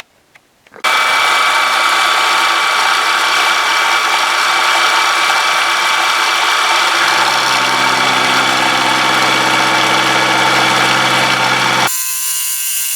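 Milling machine running and taking a facing cut across a square steel bar, a steady machining whine with cutting noise. A lower hum joins about halfway through, and the sound changes abruptly near the end.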